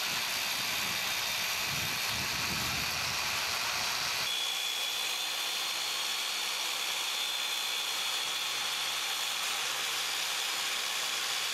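Electric saw motor and blade of a LightPro 3000 curb groove cutter running steadily as it cuts a lighting groove along a concrete landscape curb: an even hissing grind. About four seconds in, the lower part of the sound drops away and a thin high whine comes in.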